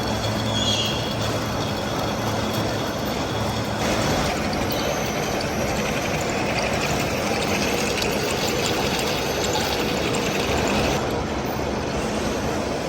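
Steady mechanical noise of heavy workshop machinery running, with abrupt changes in character about four seconds in and again near the end.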